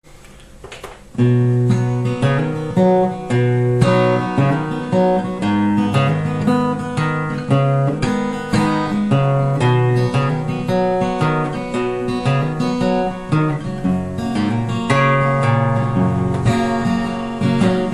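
Instrumental intro of a song, led by strummed acoustic guitar over a bass line, starting about a second in.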